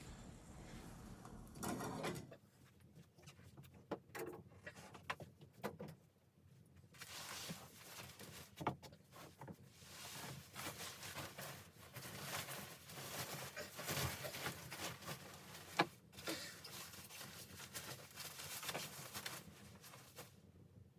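Handling noises: irregular rustling with scattered clicks and knocks.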